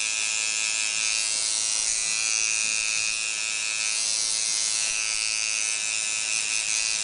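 Tattoo machine buzzing steadily as its needle lines an outline into the skin of a leg.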